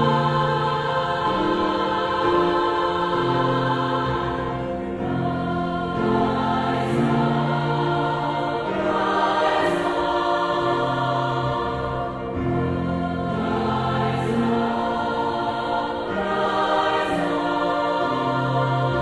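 Women's choir singing in parts, holding long notes that change every second or two, with piano accompaniment underneath.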